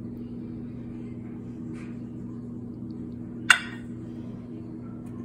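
A metal spoon clinks once, sharply, against a small glass bowl of ranch dressing about three and a half seconds in, over a steady low electrical hum.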